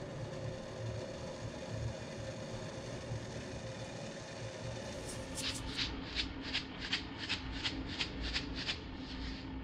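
Steady faint hiss, then about five seconds in a gas range's spark igniter clicking evenly, about three sharp clicks a second.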